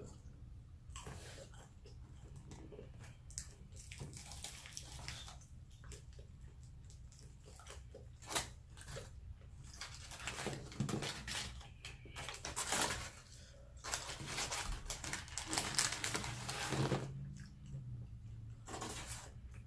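A person chewing food close to the microphone, with wet mouth sounds coming in irregular bursts.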